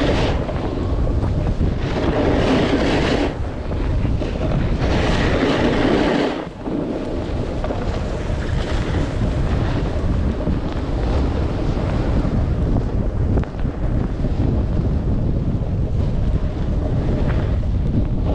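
Wind rushing over the microphone of a skier's action camera during a downhill run, mixed with the hiss of skis sliding on snow. The hiss swells twice in the first seven seconds, as on turns.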